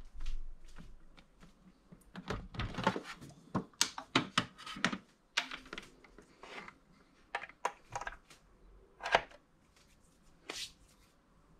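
Krups Evidence Plus bean-to-cup espresso machine being set down and shifted into place on a wooden countertop: a busy run of knocks, clunks and scrapes, heaviest in the middle, with a last single knock near the end.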